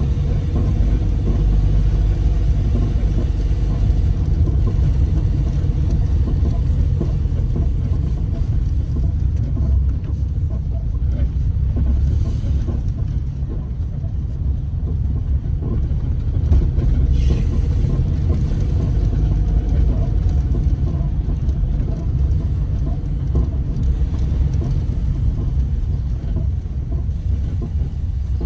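A car's engine and road noise heard from inside the cabin while driving slowly: a steady low rumble.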